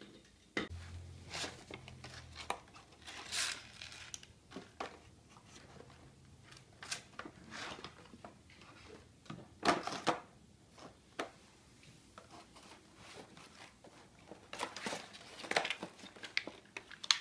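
Hands handling plastic toy train parts: scattered clicks, knocks and rustling scrapes at irregular intervals, with a sharper knock about ten seconds in.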